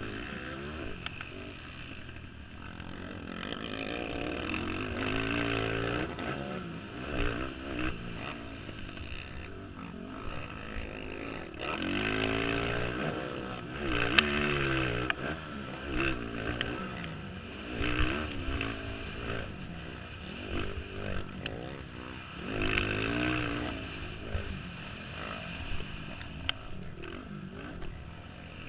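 Racing ATV engines on a motocross track, revving up and dropping back repeatedly, with the pitch climbing each time. The sound swells several times as quads come near.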